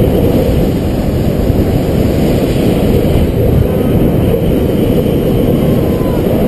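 Steady loud rush of wind on the microphone of a head-mounted camera during a fast downhill longboard run, with the low roll of the board on asphalt underneath.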